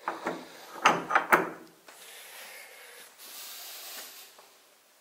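Heavy old wooden door being handled: a few sharp wooden knocks and clunks about a second in, followed by a faint steady hiss.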